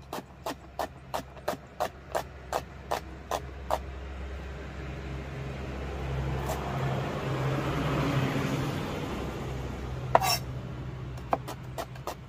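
Kitchen knife slicing a white onion on a plastic cutting board, a regular knock of the blade on the board about three times a second. In the middle the chopping pauses while a passing vehicle swells up and fades away; a single louder clack comes near the end before the chopping resumes.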